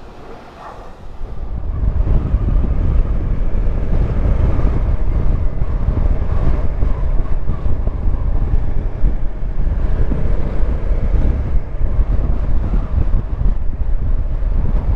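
Wind buffeting the microphone of a moving Bajaj Dominar 400 motorcycle, a steady low rumble with the bike's running engine beneath it. It comes in suddenly about a second and a half in, after a brief quieter moment.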